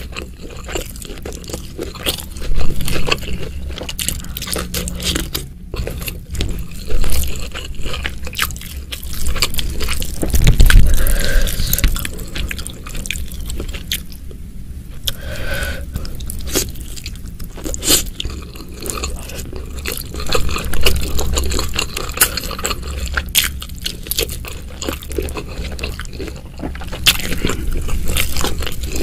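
Close-miked eating by hand: wet chewing and mouth sounds with irregular sharp crunches, and fingers squishing rice and chilli sambal together on the plate.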